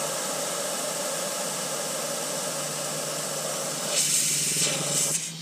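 Air hissing out of a tire valve through a brass quick-deflator fitting, airing the tire down from about 22 psi toward 20 psi. The hiss is steady, turns louder and brighter about four seconds in, then cuts off near the end.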